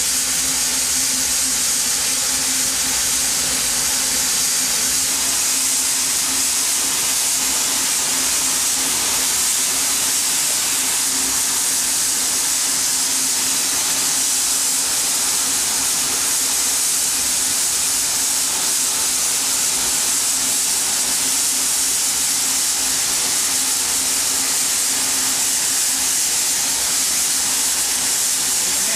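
Steam locomotive Wee Georgie Wood letting off steam in a steady, unbroken hiss, with a faint steady hum underneath.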